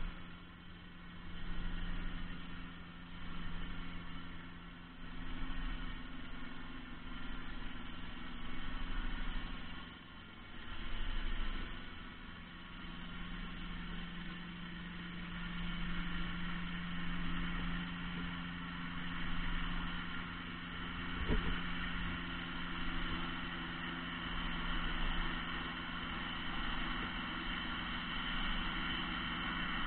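A boat engine running, heard underwater through the camera housing: a steady low drone with a stack of higher whining tones that swells and eases every couple of seconds. A single sharp tick comes about two-thirds of the way through.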